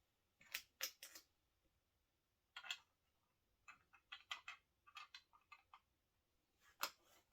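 Plastic Lego bricks clicking and clattering as pieces are handled and pressed together, in scattered sharp clicks with a quick run of small ones in the middle and one louder click near the end.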